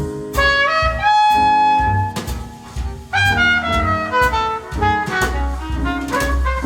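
A jazz recording with brass instruments and drums played back over a high-end hi-fi system of Audio Research electronics and Wilson Audio loudspeakers in a show demo room.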